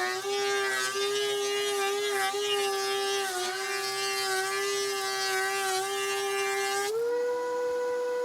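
DeWalt 735X thickness planer planing a board: the motor whine drops in pitch under load while a dense hiss of cutting and chips being blown out fills the sound. About seven seconds in the board clears the cutterhead, the hiss stops and the motor whine rises back to its steady no-load pitch.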